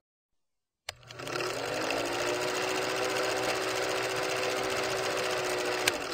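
Film projector running with a steady, fast clatter and whir, the sound effect laid under a countdown leader. It starts with a click about a second in and ends with a sharp tick.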